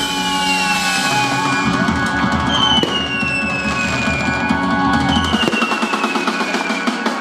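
Music with a beat playing over a fireworks display crackling and popping. A falling whistle-like tone recurs every couple of seconds. The music's bass drops out about five and a half seconds in, leaving mostly the crackle of the fireworks.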